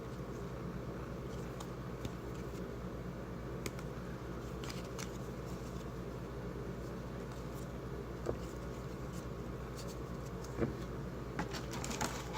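Steady low background hum from a room appliance, with occasional soft clicks and rustles of trading cards and packaging being handled, more of them near the end.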